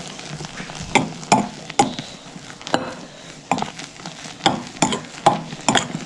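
A spoon stirring melted marshmallows in a bowl, knocking and scraping against the bowl at an uneven pace, about one or two strokes a second.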